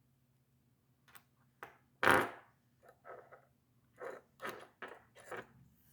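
Handling noises of a small pocket knife in the hand: a string of short clicks and rubs, the loudest about two seconds in.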